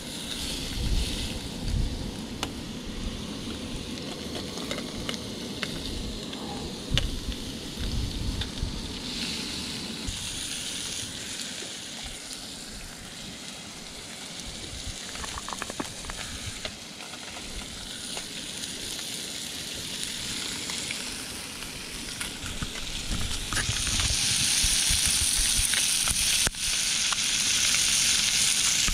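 A thick fish fillet sizzling in butter in a thin camping frying pan, with a few sharp taps of a spatula against the pan. The sizzle grows louder and brighter near the end.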